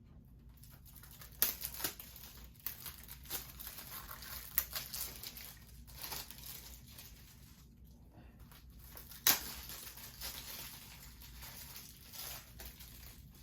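Plastic shrink-wrap being torn and crumpled off a Blu-ray case: irregular crinkling and crackling, with sharp snaps about a second and a half in and again about nine seconds in.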